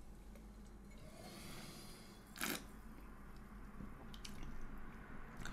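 Quiet sipping of sparkling wine from a stemmed glass, with one short, sharp slurp about two and a half seconds in. A few light clicks follow as the glass is set down on a wooden table.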